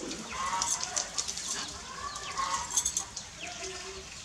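Short animal chirps and calls that rise and fall in pitch, mixed with light high clicks.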